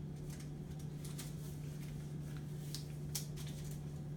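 Faint rustling and a few light ticks of sterile packaging and drapes being handled, over a steady low hum.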